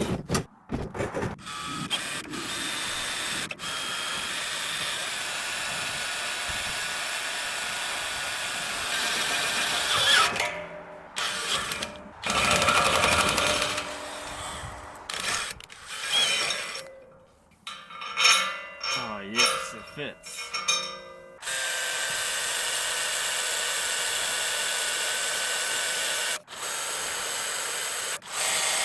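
Power drill boring holes through steel, running in several long steady stretches with pauses and stop-start bursts between them.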